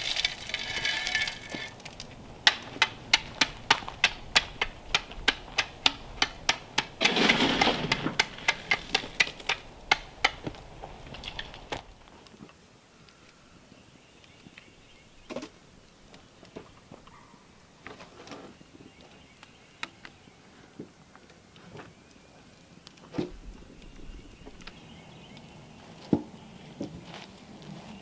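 A hatchet strikes wood in a fast, even series, about three blows a second, for several seconds. After that come quieter scattered knocks of wood being set down on a smoking fire, with faint ticking in between.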